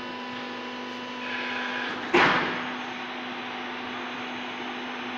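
Hydraulic carton baling press humming steadily as its electric motor and pump run, with a brief hiss and then a single sharp metal clank about two seconds in.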